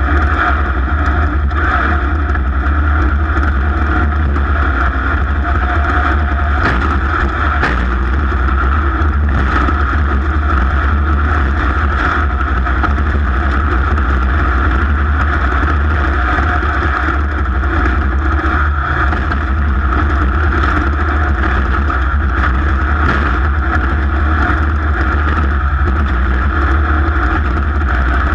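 Racing vehicle's engine running hard and steadily through a lap, the pitch holding fairly even without large revs or drops.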